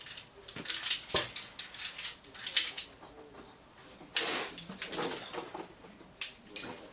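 Gear being handled while packing: scattered light metallic clinks and clatters, with a longer rustle of fabric or bags about four seconds in.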